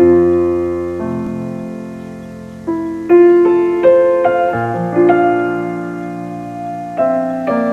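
Solo piano playing a slow, gentle piece: chords and single melody notes, each struck and left to fade.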